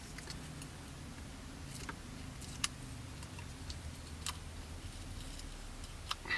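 Faint, sparse clicks and light crackles of masking tape being peeled by hand from a small clear plastic model canopy, with one sharper click about two and a half seconds in. A low steady hum lies underneath.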